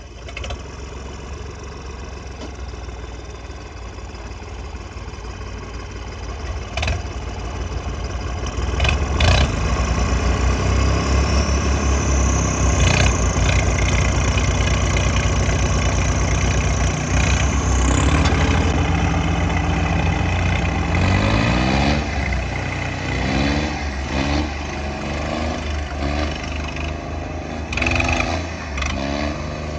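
Diesel tractor engines of a Swaraj 855 and a New Holland 3630 working hard in a tug of war, hitched hook to hook: a deep steady engine rumble grows louder after several seconds and holds under heavy load, with a high whine in the middle. In the last third the engines rev up and down repeatedly.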